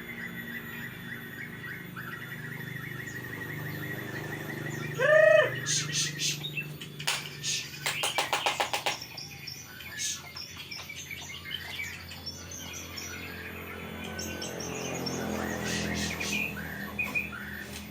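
Murai songbird chirping and twittering in scattered high notes. About five seconds in comes the loudest sound, a short call of a few arching notes, followed by a fast run of sharp clicks lasting a couple of seconds. A steady low hum runs underneath.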